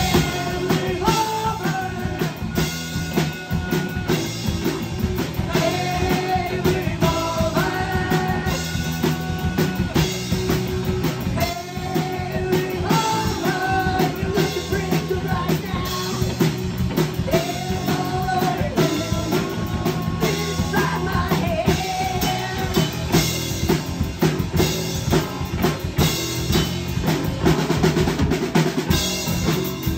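Live rock band: a drum kit keeps a steady beat under electric guitar and electric bass, with a man singing over them.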